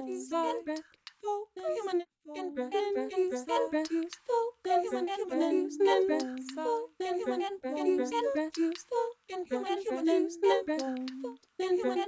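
Experimental electronic music built from chopped, voice-like samples triggered from pad controllers, playing as stuttering fragments that cut off abruptly every second or two.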